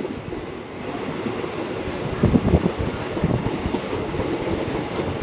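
Train running along the track: a low rumble with irregular knocks and clatter from the wheels on the rails.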